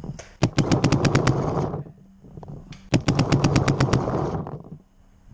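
Paintball marker firing two rapid strings of shots, about ten shots each at roughly eight a second, the first starting about half a second in and the second about three seconds in.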